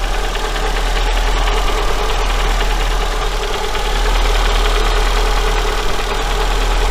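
ZAZ Sens four-cylinder engine idling steadily, with a light knock starting to come through from around cylinders 3–4. The knock comes from a worn connecting-rod small-end bushing, the piston pin loose in it.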